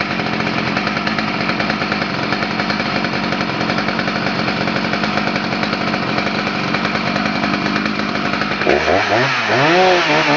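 Husqvarna 288 XP's 87cc chainsaw engine running steadily at high speed; near the end its pitch rises and falls in a wide swing.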